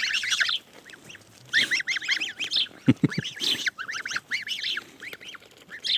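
A flock of domestic geese calling together in several bursts of quick, overlapping honks. A couple of short low knocks come about three seconds in.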